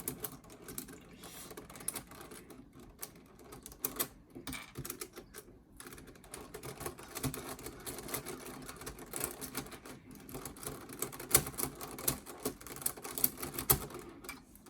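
Plastic 5x5 Rubik's cube being turned by hand, its layers clicking and clacking in quick irregular runs, louder toward the end.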